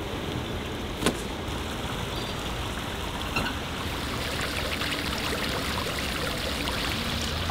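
River water running and trickling, a steady rush, with a sharp knock about a second in.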